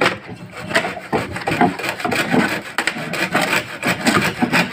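Handsaw cutting through a wooden desktop with repeated back-and-forth strokes.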